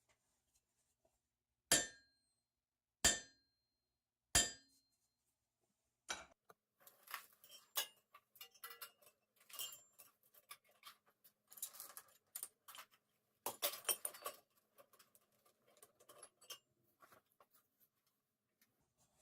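Three hammer strikes on the face of an antique anvil, each with a short ring, about a second and a half apart. The anvil has a magnet stuck to it to damp its ring. After a pause comes a long run of light, irregular metallic clinking and jangling from a chain laid on the anvil to quiet it.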